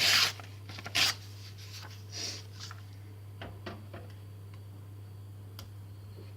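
Paper rustling and being handled while homemade glue is tested on it, with two loud rustles in the first second or so, then softer rubbing and light taps. A steady low hum runs underneath.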